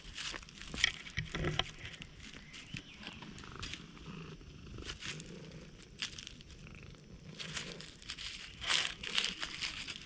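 A stray cat purring steadily while being petted, with dry leaves crackling and rustling as it moves over them.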